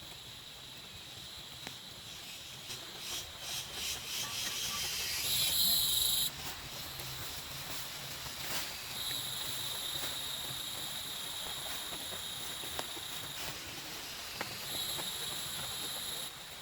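Steady hissing that switches on and off sharply in three stretches, the first short and the loudest, after a run of quick crackling or rustling strokes.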